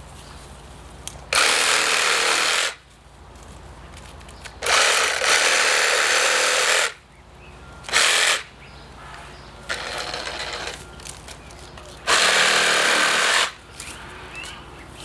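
Reciprocating saw with a Diablo 9-inch pruning blade cutting through tree branches in four bursts: two longer cuts of one to two seconds, a very short one about eight seconds in, and a last cut near the end.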